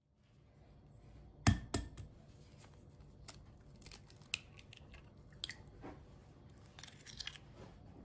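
An egg being cracked: two sharp taps about a second and a half in, then small crackles of the shell being pulled apart by hand.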